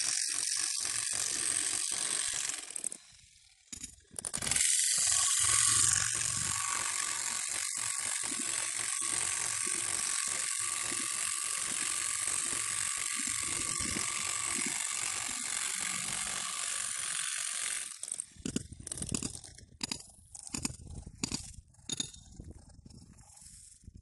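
Electric demolition hammer with a chisel bit breaking up a concrete slab: a rapid, continuous hammering rattle with a steady whine. It stops briefly about three seconds in, resumes a second later, and stops for good near eighteen seconds. After that come scattered knocks and clatter of broken concrete pieces.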